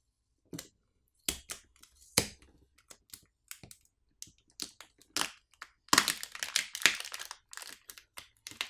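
Adhesive pull tab being peeled and the Samsung Galaxy S25 Ultra's battery pried up from its glue: irregular clicks and crackles, with a dense burst of crackling about six seconds in.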